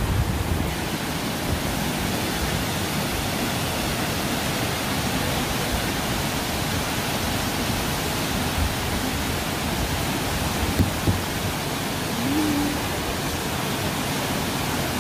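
Waterfall close by: a steady, even rush of falling water. A couple of faint knocks come about two thirds of the way through.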